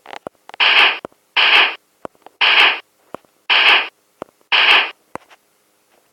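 Five short bursts of hiss, about a second apart, with a few faint clicks between them.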